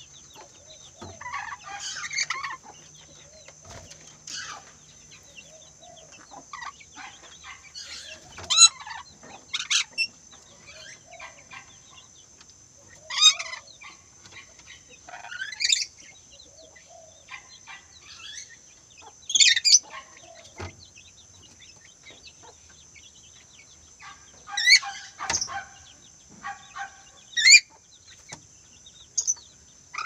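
Lorikeets in an aviary giving short, sharp screeching calls, singly or in quick pairs, every few seconds.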